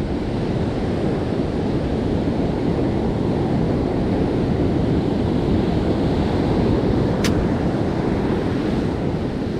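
Heavy surf breaking and washing up the beach in a steady wash of noise, with wind rumbling on the microphone. A single sharp click about seven seconds in.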